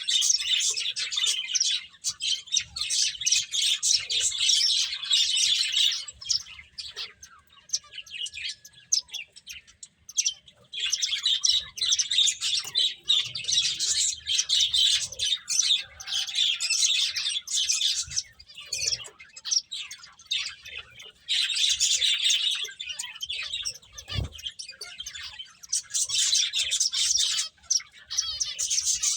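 A group of pet finches chirping rapidly in busy bouts, many short calls overlapping, with brief lulls between bouts.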